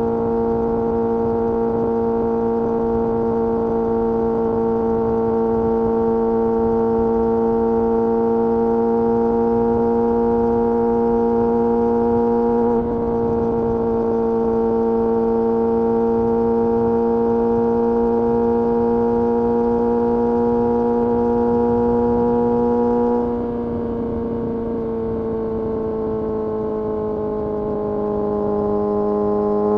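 Kawasaki Ninja ZX-6R inline-four engine held at steady high revs while riding, with a brief break about halfway through. About 23 seconds in the throttle closes and the revs slowly fall, picking up again right at the end.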